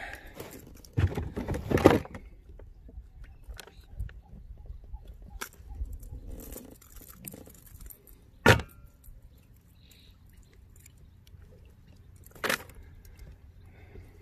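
Handling noises as a largemouth bass is unhooked: metal jingling and clinking of lure hooks and a tool, with a louder scuffle about a second in and a few sharp knocks.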